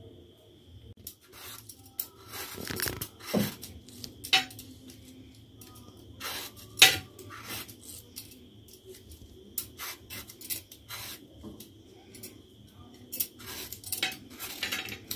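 Kitchen knife peeling raw green mangoes: irregular scraping strokes through the firm skin, with sharp clinks as the blade and strips of peel hit a stainless steel plate.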